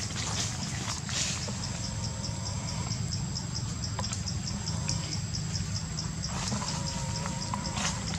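Insects chirping in the forest: a steady high-pitched trill pulsing evenly about four times a second, over a constant low rumble.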